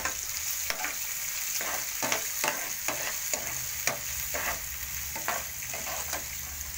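Chopped onions sizzling in hot oil in a frying pan while a metal spatula stirs them, scraping and tapping against the pan about twice a second over a steady hiss.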